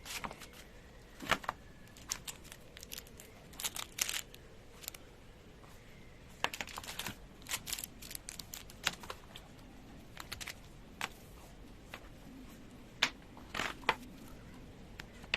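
Product packaging being handled and opened by hand: irregular clicks, taps and short crinkling rustles, coming in small clusters.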